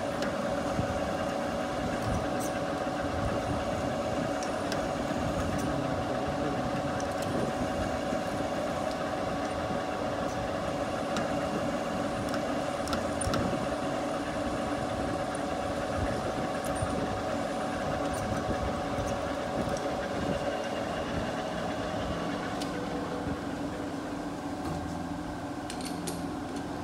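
Metal lathe running while a twist drill held in the tailstock chuck bores into the spinning workpiece: a steady machine hum with constant tones. About 22 seconds in the tones fade and the sound drops a little.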